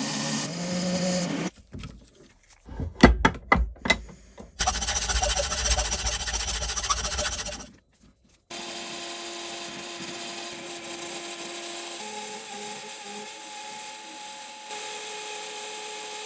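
Metal lathe running while aluminium bar stock is cut, heard in several abrupt edited segments: a cluster of sharp knocks about three seconds in, a loud stretch of dense cutting noise, then the lathe running steadily with a few held tones.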